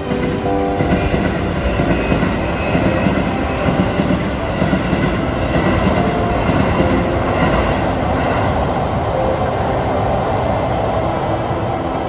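Keisei Line electric train passing over a level crossing, its wheels clattering over the rails in a quick, uneven rhythm.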